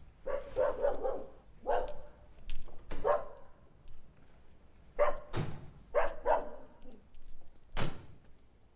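A dog barking repeatedly: about a dozen short, sharp barks in loose runs, with a lull about four seconds in.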